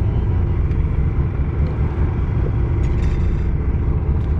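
Steady low rumble of a fishing boat's engine, with a few faint clicks in the middle.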